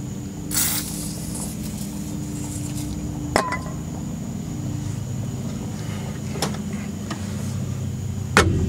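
A steady low mechanical hum, with a sharp metallic clink of a hand tool against the rear shock hardware about three and a half seconds in and a few lighter knocks later. There is also a brief hiss about half a second in.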